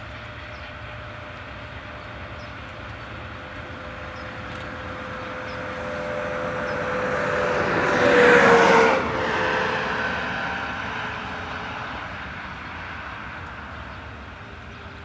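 Freight train hauled by a 3TE10M diesel locomotive passing at a distance, a steady rumble of engine and rolling wagons. Past the middle a louder rushing pass-by swells over a few seconds, its tones dipping slightly in pitch, and then fades away.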